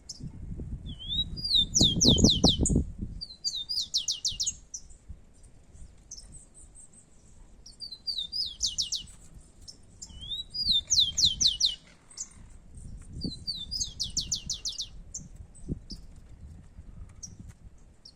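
Rufous-collared sparrow (tico-tico) singing its song five times: a couple of clear whistled notes, then a fast descending trill. A low rumbling noise runs underneath, loudest about two seconds in.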